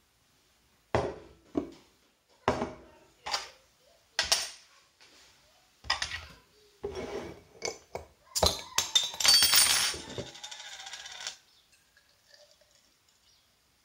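Glass, bottle and metal bottle opener set down on a stone worktop with a series of clinks and knocks, then a bottle of beer opened with a sharp crack about eight and a half seconds in, followed by about two seconds of loud fizzing as it is poured into a glass.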